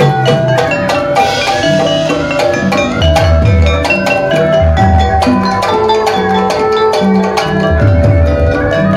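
Sundanese gamelan playing: keyed metallophones and kettle gongs struck with mallets in a quick, ringing run of notes. Deep low strokes sound about three seconds in, near five seconds and again near eight seconds.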